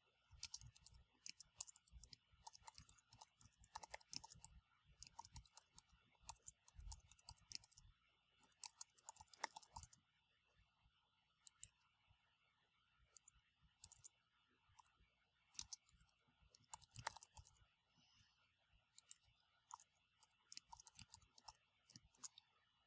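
Faint keystrokes on a computer keyboard, typed in irregular runs that thin out for a few seconds about halfway through.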